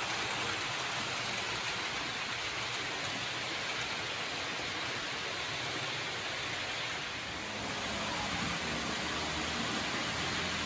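H0 model trains running on a layout's track, a steady rushing rolling noise of wheels and motors. A low hum joins near the end.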